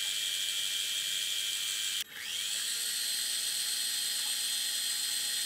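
Mini-lathe running with its spindle turning, a steady high-pitched motor whine, while a drill bit is fed in to start a center hole in a steel nut. About two seconds in the sound drops out abruptly and quickly comes back up.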